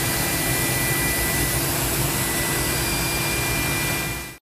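Steady whooshing machinery noise with a faint high whine and a low hum, stopping abruptly near the end.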